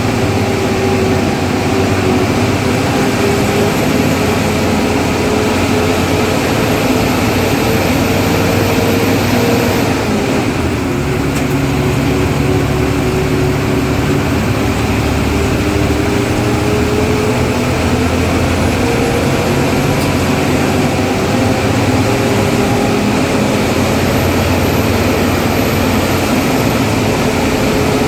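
Ashok Leyland bus diesel engine running hard under load, its note climbing, dropping sharply about ten seconds in, then climbing again, with a thin turbocharger whistle rising over it twice.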